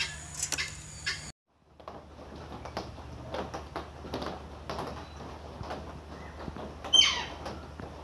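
Parrot aviary sounds: scattered clicks and taps, then about seven seconds in a single loud, harsh parrot call that falls in pitch. The sound drops out for a moment shortly after the start.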